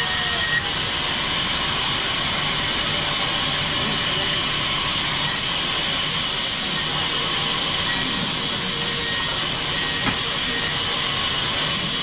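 Sawmill band saw running and cutting lengthwise through a large log as it is pushed along the table: a steady, even high hiss of blade in wood, with a couple of small knocks.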